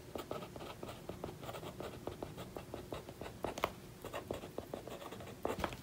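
Marker pen writing on a sticky note, a faint run of many short strokes.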